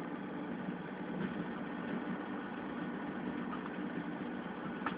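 Passenger train running, heard from inside the coach: a steady running noise with a low hum, and a single sharp click near the end.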